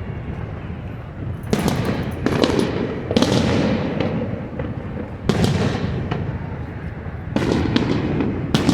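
Aerial fireworks bursting, about seven sharp bangs a second or two apart, over a continuous low rumble and crackle. Two bangs come close together near the end.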